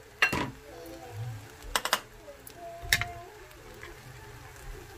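A few sharp clicks of metal chopsticks tapping against each other and the pan, with faint voices in the background.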